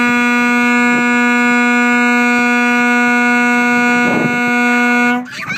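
Truck horn held in one long, steady blast on a single pitch, cutting off sharply about five seconds in.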